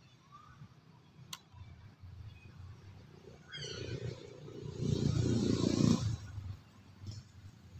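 Close rustling and rumbling as a macaque moves through dry leaf litter right by the microphone, loudest about five to six seconds in, with a short run of high squeaks just before.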